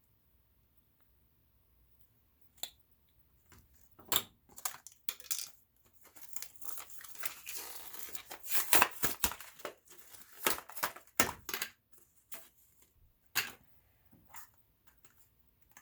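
Packaging being handled and rustled: crinkling and tearing noises mixed with scattered clicks and light knocks. After a quiet start there is one sharp click, then the rustling builds to its loudest in the middle and dies down near the end.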